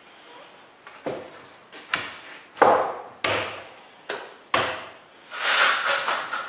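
Wooden parts of a mortise-and-tenon frame knocking together during glue-up: about six sharp wooden knocks at uneven intervals, then a longer scraping sound near the end.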